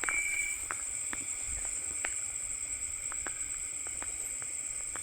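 Night insect chorus: crickets trilling steadily at a high pitch, with scattered faint clicks.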